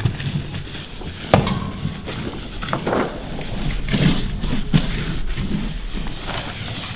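Poster paper being handled and rubbed flat against a billboard panel by hand: irregular rustling and rubbing with scattered knocks, a sharp one about a second and a half in.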